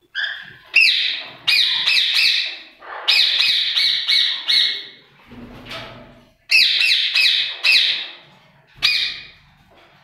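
Caged parakeets squawking: four bursts of rapid, shrill calls, three to five notes each, with short pauses between.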